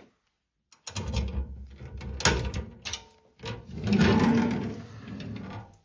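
Irregular clattering and knocking of a display cabinet being opened, starting about a second in and loudest about halfway through.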